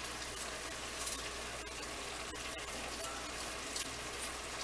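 Onion and bell pepper frying in a pan on the stove, a steady sizzle.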